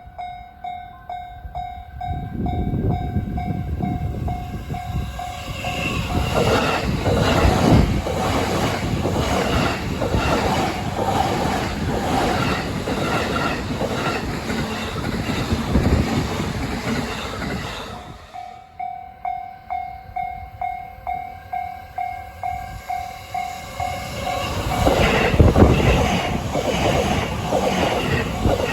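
A Japanese level-crossing alarm rings in a steady two-tone pulse about twice a second, then an E233 series 6000 electric commuter train passes for about a dozen seconds, its wheels clattering over the rail joints and drowning out the alarm. The alarm is heard again on its own for a few seconds, and a second train comes through near the end.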